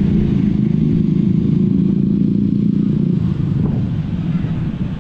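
Honda Vario 160 scooter's single-cylinder engine running steadily under load on the move. Its tone eases slightly after about three seconds.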